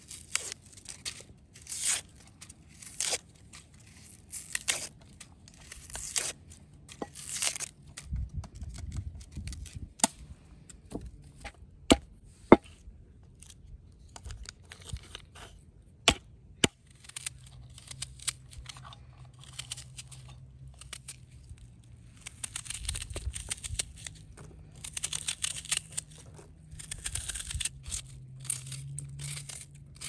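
Dry papery onion skin being peeled off with a small knife, in repeated short tearing strokes. Around the middle come a few sharp single cracks of walnut shells struck open with a stone on a wooden board, followed by more crinkling and rustling.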